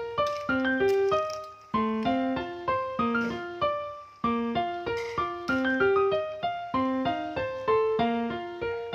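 Background music: a bright melody on a keyboard instrument, its notes struck quickly one after another and each fading fast.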